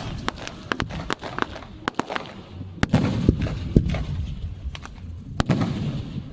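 Fireworks going off: a rapid, irregular run of sharp pops and crackles over a low rumble, with a few louder cracks.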